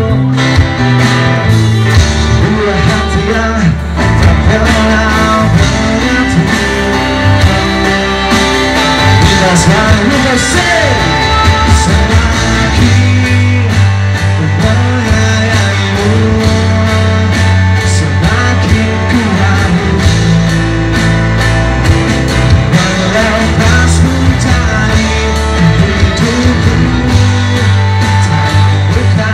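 Live band playing a pop-rock song: a male voice singing over electric guitar and drums, with a saxophone in the band.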